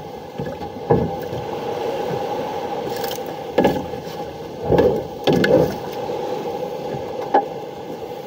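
Short knocks, thuds and scrapes against the hull of a small outrigger fishing boat as it is worked by hand, about five of them, over a steady hum.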